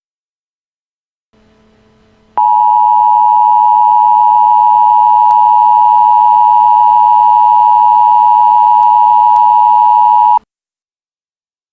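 Emergency Alert System attention signal: a loud, steady electronic alert tone that starts suddenly about two seconds in, holds for about eight seconds, and cuts off abruptly. A faint hum comes in just before it.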